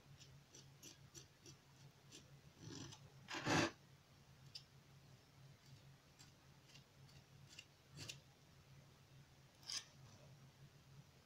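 Small metal palette knife scraping and tapping on a hard board as it picks up and spreads green-tinted paste. Faint short scrapes and clicks, with a few louder ones, over a low steady hum.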